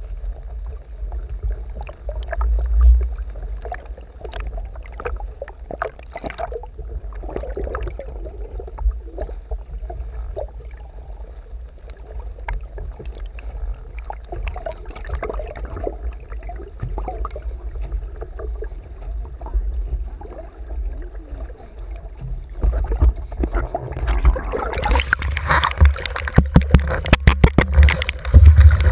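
Water sloshing and gurgling around a GoPro action camera on a windsurf rig lying in the water, over a steady low rumble of water buffeting the housing. Near the end the splashing grows louder, with a quick run of sharp knocks as the sailor handles the rig.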